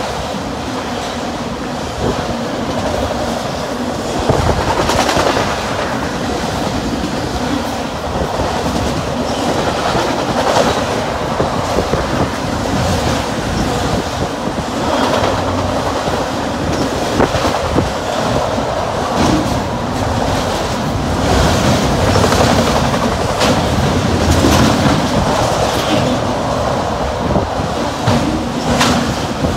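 Freight train of autorack cars rolling past, their steel wheels clacking repeatedly over the rails above a steady rumble.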